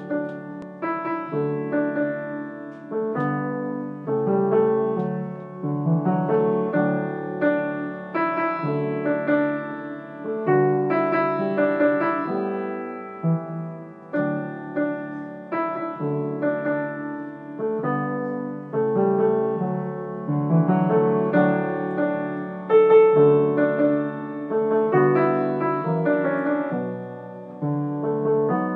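Grand piano played solo: a continuous pop-song arrangement with a melody over rolling chords and bass notes, each note struck and left to ring.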